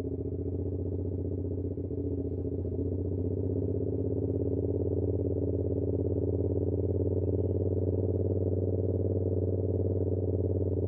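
2022 Yamaha R7's 689 cc parallel-twin engine running through an SC-Project CR-T exhaust at a steady cruise, building slightly over the first few seconds and then holding. Heard muffled, with little above the low and middle range, from a recorder carried in the rider's backpack.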